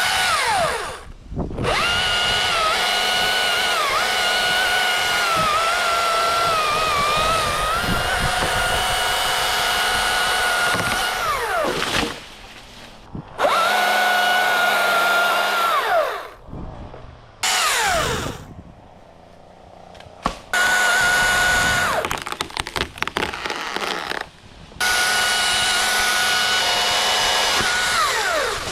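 Two-stroke chainsaw run at full throttle in several long cuts, its pitch dipping where it bogs in the wood, falling back to idle between cuts before revving up again.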